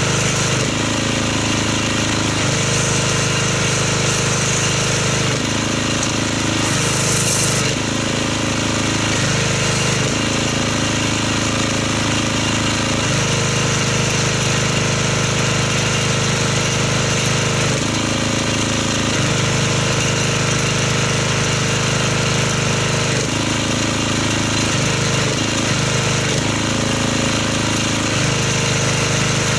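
Pressure washer running steadily while it feeds an MTM foam cannon that sprays soap foam. Its low note shifts between two levels every few seconds over a steady spray hiss.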